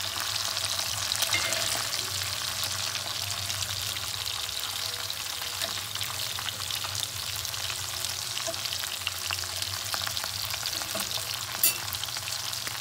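Sardines sizzling and crackling steadily as they shallow-fry in sunflower oil in a cast-iron pan, with one sharp tick near the end.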